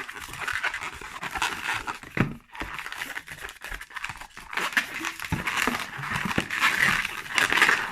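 Long latex modelling balloon squeaking and rubbing in the hands as it is twisted into bubbles for the cat's legs, in uneven squeaky strokes.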